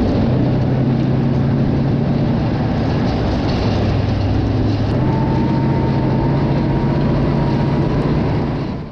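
T-72A tank driving, heard from on top of the turret: its V12 diesel engine runs steadily amid the noise of the tracks, and a thin high whine joins about halfway through.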